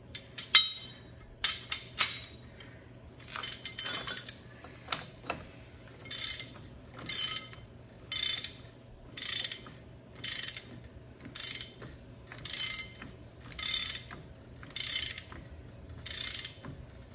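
Ratchet wrench tightening the inner bearing adjusting nut on a truck's front wheel hub, running it down tight to seat the hub seal. A few metal clinks come first, then steady ratcheting strokes about one a second.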